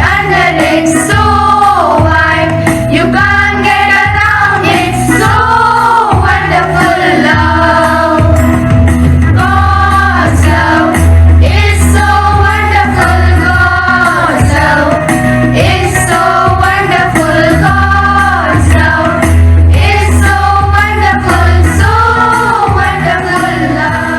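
A prayer song sung by female voices over instrumental accompaniment with a steady bass line.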